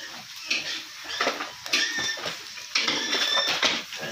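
Open wood-and-charcoal fire under a spit-roasted whole pig, crackling and hissing, with scattered pops and two brief higher hisses a little after the middle.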